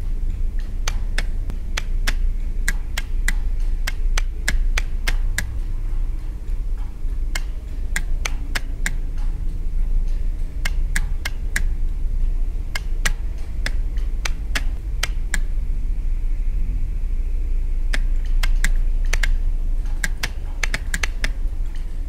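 Electromechanical relays of the Blinkenlights light installation clicking as they switch its lamps on and off: irregular sharp clicks, sometimes several in quick succession, with short pauses, over a steady low hum.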